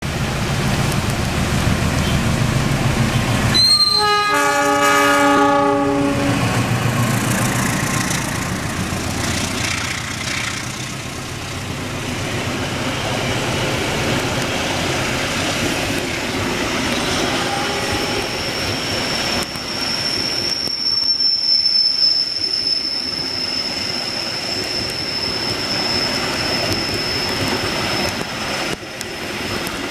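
Passenger train passing at speed: the diesel locomotive rumbles as it approaches, then sounds its horn in one blast of about two seconds, about four seconds in. The carriages then rush past with steady wheel-and-rail noise. From about twenty seconds in a high, steady squeal joins, which fits wheels squealing on the rail.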